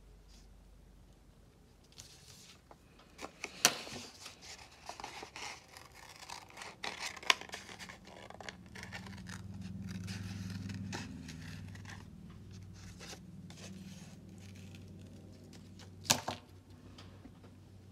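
Small craft scissors snipping construction paper, with paper rustling and scraping as the pieces are handled. A few sharp clicks stand out, and a low hum rises in the middle.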